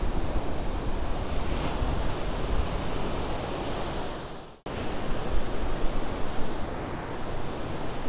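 Ocean surf breaking and washing over a rocky shoreline, a steady rush with wind rumbling on the microphone. The sound cuts out for an instant about halfway through, then resumes.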